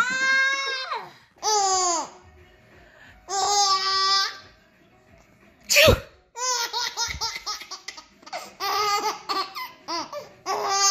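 A toddler squeals with laughter in three long, high-pitched shrieks. Then, after a sharp crack about six seconds in, a baby laughs in quick, short, rhythmic giggles.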